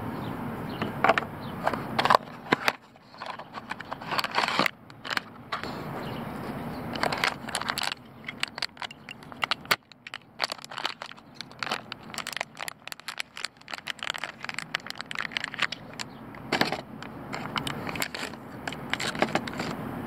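Clear plastic packaging of LED bulbs crinkling and crackling as it is handled and opened, in irregular bursts of small clicks and rustles.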